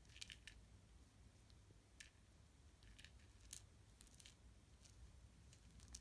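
Near silence with faint, irregular clicks and ticks scattered throughout, over a low hum.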